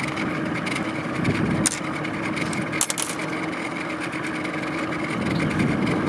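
Small boat motor running with a steady hum, with a few sharp knocks about one and a half and three seconds in.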